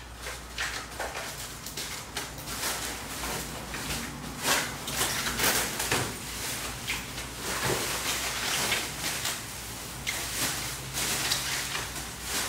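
Packaging being handled while new truck window glass is unboxed: irregular rustling and scraping with short knocks.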